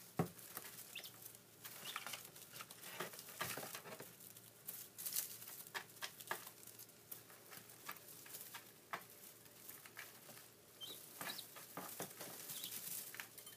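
Day-old guinea fowl keets moving about in straw bedding: scattered faint rustles and light taps, with a few brief high peeps near the end.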